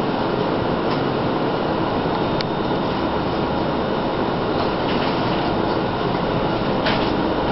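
A steady rushing noise with a few faint light clicks.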